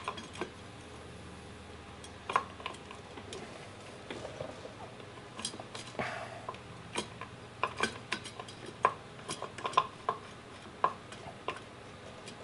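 Small metallic clicks and clinks, irregular and scattered, as a motorcycle's front brake caliper is seated over the disc and its mounting bolts are threaded in by hand.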